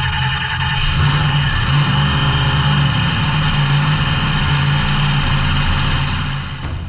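Pontiac V8 drag-race engine running at idle, loud and steady with an uneven low beat.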